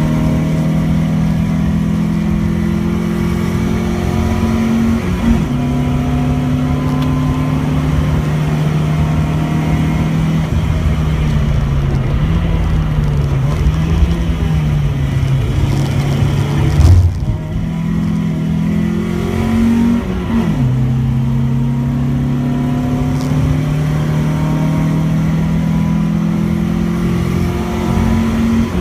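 Opel Manta 2.0 GSi four-cylinder engine under hard acceleration, heard from inside the cabin. Its pitch climbs steadily through each gear and drops sharply at upshifts about five seconds in, about twenty seconds in, and right at the end. A loud thump comes about seventeen seconds in.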